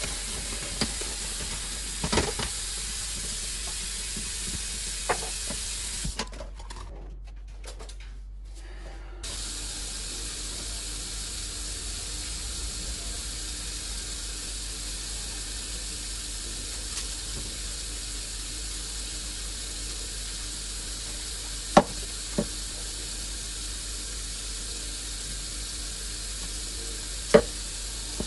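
Kitchen tap running steadily into a stainless-steel sink, with a few sharp knocks of things handled in the sink. The water sound breaks off for about three seconds, starting about six seconds in.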